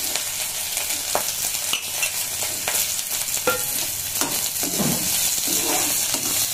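Chopped onions sizzling steadily in hot oil in a steel kadhai, with a perforated metal spatula scraping and knocking against the pan several times as they are stirred.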